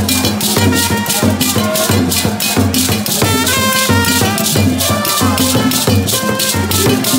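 Music with a steady beat: a fast, even high percussion pulse over a repeating bass line and short melody notes.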